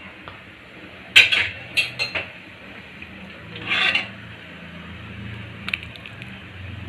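Metal ladle scraping and clinking against the pan and serving bowl as a thick vegetable curry is spooned out. There are a few short scrapes about a second in and around two seconds, and a longer scrape near four seconds.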